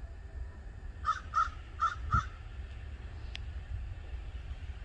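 A bird calling four times in quick succession, with harsh, crow-like calls, over a low steady rumble. A single sharp click follows.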